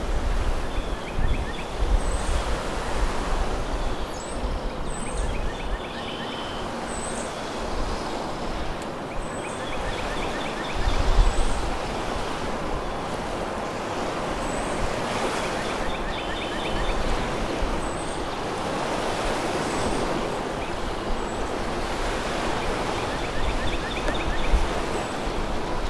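Waves washing steadily onto a shore, swelling and easing, with gusts of wind on the microphone and short, high chirps every couple of seconds.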